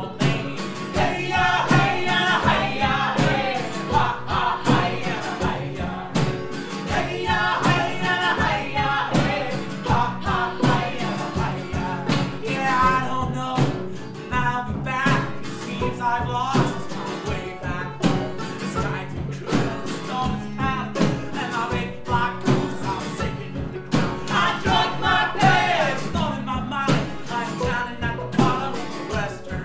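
Acoustic folk band playing a song: a male lead voice singing over strummed acoustic guitars, banjo and upright bass, in a steady strummed rhythm.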